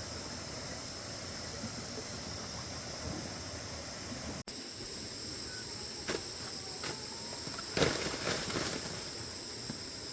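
Steady outdoor background hum with high, even tones. In the second half come a few short rustles and knocks, the loudest a little before the end.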